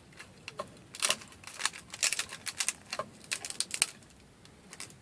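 Rapid, irregular sharp clicks and small cracks of PLA support material being snapped off a 3D-printed figure, mostly between about one and four seconds in.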